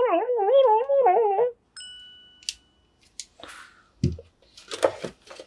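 A background music melody stops about a second and a half in, followed by a single bright bell-like ding. After that come faint handling rustles and a soft thump as a small plastic robot ball is set down on a wooden table.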